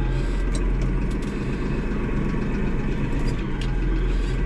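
Tractor engine running steadily at low revs, heard from inside the cab, with a few light clicks and rattles.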